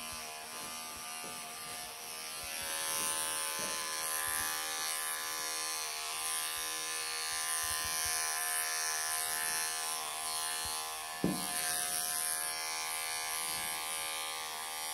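Wahl cordless pet clippers running steadily as the blade is pushed through a Persian cat's dense, cotton-wool coat during a full clip. The hum gets a little louder through the middle, and there is a brief knock about eleven seconds in.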